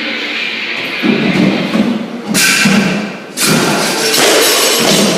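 Thuds of workout equipment or landings over background music.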